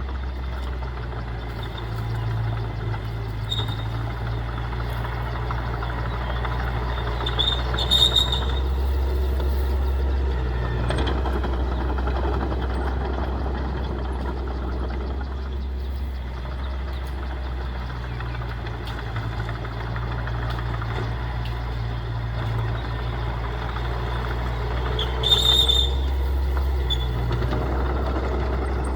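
Heavy diesel earthmoving machinery, a bulldozer at work, its engine running steadily and swelling and easing as it works. There are two brief high squeaks, about eight seconds in and again near the end.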